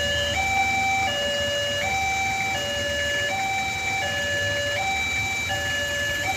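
Electronic two-tone warning alarm alternating steadily between a low and a high note, each held about three-quarters of a second.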